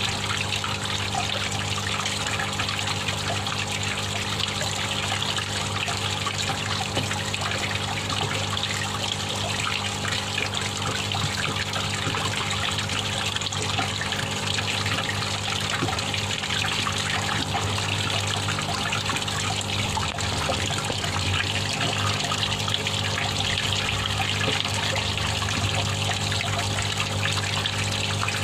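Water trickling and bubbling steadily in a fish tub, with a constant low hum underneath.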